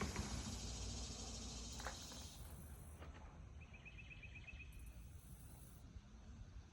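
Faint outdoor ambience with a low rumble and a hiss that fades about two seconds in. About four seconds in comes a short, rapid clicking trill, about a second long, from a small animal, insect or frog.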